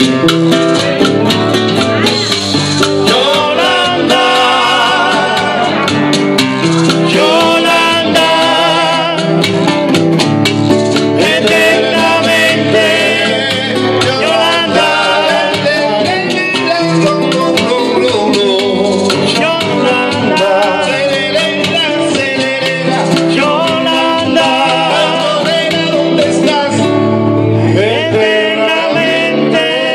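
A man singing into a handheld microphone over a backing track with guitar, his voice wavering in vibrato on held notes.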